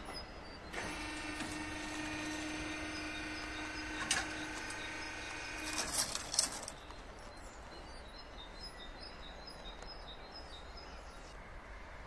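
A steady pitched tone lasting about six seconds, with a few clicks near its end, then birds chirping over faint background noise.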